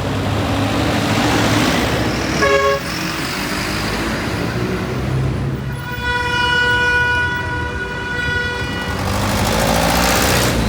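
City street traffic with car horns honking: a short toot about two and a half seconds in, then a long horn blast of about three seconds, over the steady noise of passing vehicles.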